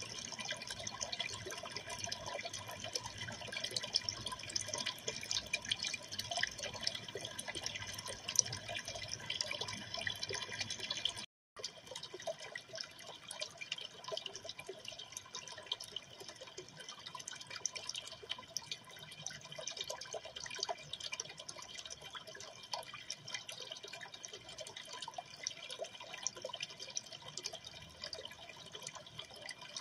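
Aquarium water trickling and splashing steadily, a dense patter of small drips. It breaks off for a moment about eleven seconds in, then goes on a little quieter.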